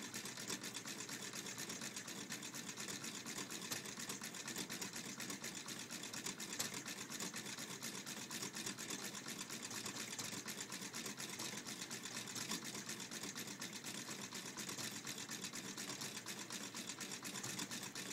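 Twin-cylinder drink-can Stirling engine running, its wire crankshaft and wire connecting rods rattling in a fast, steady clatter.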